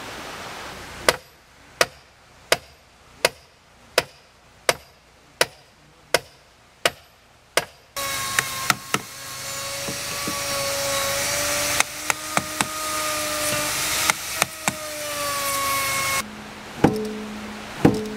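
Hammer blows on heavy timber: a steady run of about ten strikes, roughly one every 0.7 seconds, then scattered strikes over a loud hiss with a wavering tone.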